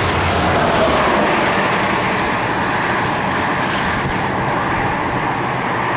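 Steady, continuous roar of passing vehicle traffic.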